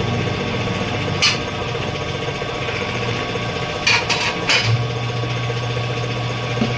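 Tyre-repair shop tools at work: a motor running steadily, with a few short sharp knocks about a second in and again around four seconds in, and the motor's low drone growing stronger soon after.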